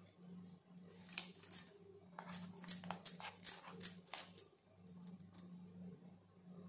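A steel spoon clicks and scrapes against a bowl and a steel tray while scooping a thick moong dal batter and spreading it on bread, about a dozen light clicks in quick succession through the middle of the stretch. A steady low hum runs underneath.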